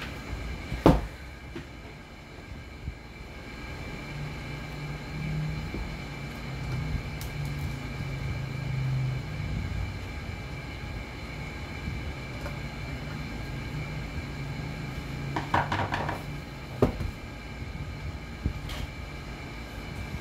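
Handling noises from the metal case of an inverter welding machine being opened on a workbench: a sharp knock about a second in, a short rattle of clicks about three-quarters of the way through, and another knock soon after, over a steady low rumble and a faint high whine.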